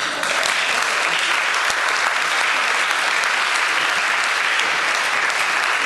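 Audience applauding, breaking out suddenly and holding steady throughout.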